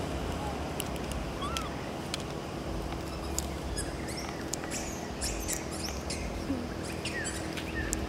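A few short, high squeaks from a baby macaque, over a steady low hum and scattered light clicks.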